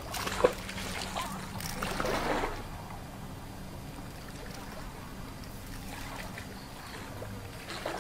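Water splashing and sloshing around a person wading through a muddy pond, with a sharp slap about half a second in; the splashing dies down after a couple of seconds.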